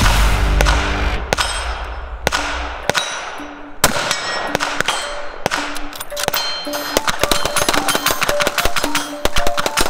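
Background electronic music with a repeating pattern of short notes, mixed with sharp gunshot cracks. A deep rumble dies away over the first three seconds, and the shots come thick and fast near the end.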